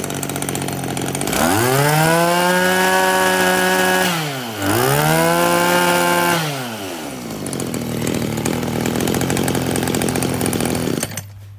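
Stihl 33 cc two-stroke brush cutter engine idling, then revved twice on the handlebar throttle, its pitch rising, holding for about two seconds and falling back each time. It settles back to idle and cuts off suddenly near the end as it is switched off.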